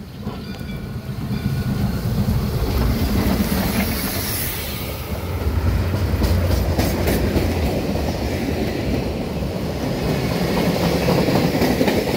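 Soo Line steam locomotive and its freight train rolling past at close range: a steady heavy rumble that grows louder over the first couple of seconds as the engine nears, with the wheels clicking over the rail joints as the cars go by.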